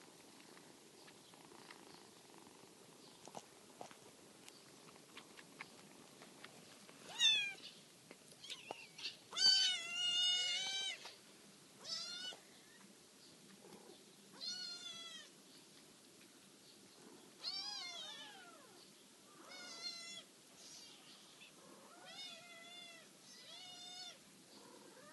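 Cat meowing over and over: about ten high calls that fall in pitch, beginning about seven seconds in, some of them drawn out for more than a second.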